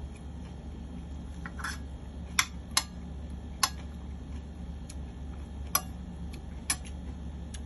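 Metal spoon and fork clicking and scraping against a plate while eating, about six short sharp clicks at irregular intervals over a steady low hum.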